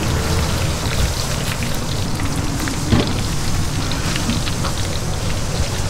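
Hot oil in a deep fryer sizzling steadily with a fine crackle, with light clicks of metal tongs picking up fried tempura and one sharper click about halfway through.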